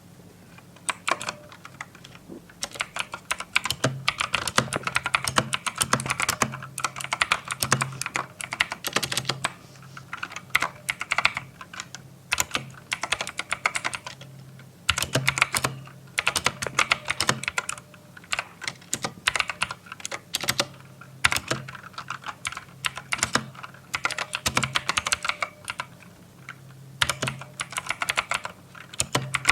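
Typing on a Drevo Tryfing V2 mechanical keyboard with clicky blue switches: rapid, dense key clicks in runs, broken by a few short pauses.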